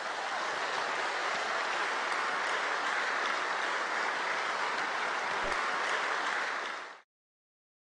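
Large audience applauding steadily; the clapping cuts off suddenly near the end.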